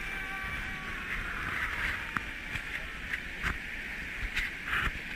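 Rushing whitewater rapids, a steady hiss of moving water, with several short sharp splashes or knocks through it.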